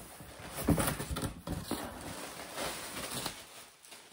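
Cardboard shipping box being opened and handled: flaps pulled back and the cardboard and packing scraped and crinkled in irregular bursts, dropping away to quiet near the end.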